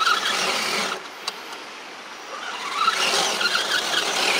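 Electric RC truck's motor and gear train whining roughly as it drives, easing off about a second in and picking up again near three seconds, with one click in the quiet stretch. The rough gear noise comes from a replacement plastic idler gear in a transmission whose gears were not cleaned out.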